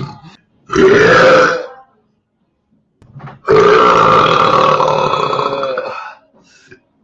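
A person burping loudly: a burp about a second long near the start, then a long drawn-out burp of about two and a half seconds from about halfway.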